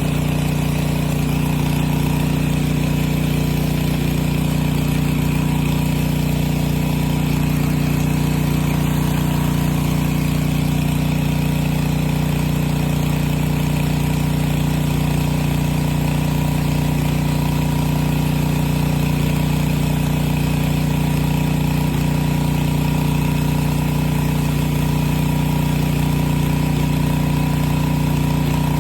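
Pressure washer running steadily at an even, unchanging pitch.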